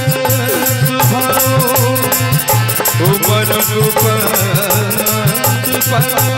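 Instrumental Indian devotional music: a harmonium melody over a steady dholak and drum-pad beat.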